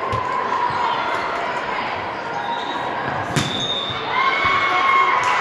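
Indoor volleyball match: a sharp ball hit about three and a half seconds in, over steady crowd noise in a gym.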